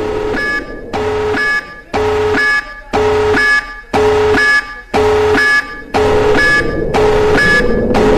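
Electronic warning siren giving a pulsed alarm signal: a steady two-tone beep about half a second long, repeated about once a second.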